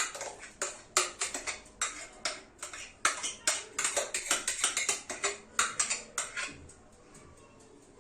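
A kitchen utensil clinking and tapping against a bowl in quick, irregular strokes while whipped egg-white meringue is scooped out. The taps stop about six and a half seconds in.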